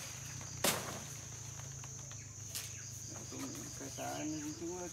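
Steady, high-pitched chirring of insects in the vegetation, with a single sharp knock about half a second in.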